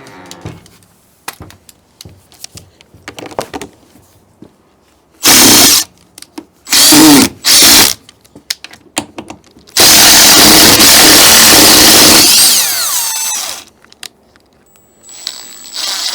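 Power drill driving screws. It runs in three short bursts, then one long run of about three seconds that winds down at the end, with small clicks of handling in between.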